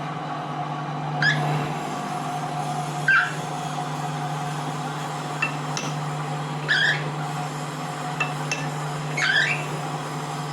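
Steady low machine hum, with short high chirps or squeaks coming irregularly every second or two.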